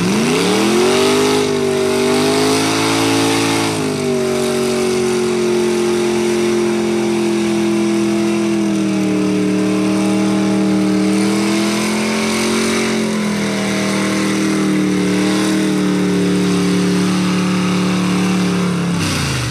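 Big-block Chevy V8 in a lifted pickup revving up sharply and held at high revs for about nineteen seconds, its pitch wavering as the tires churn through deep mud, then dropping off suddenly near the end.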